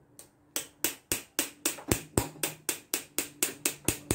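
Quick, evenly spaced light hammer taps on a metal hose fitting, about four a second, starting just under a second in: the fitting is being knocked onto a truck air-system hose so that it stays seated.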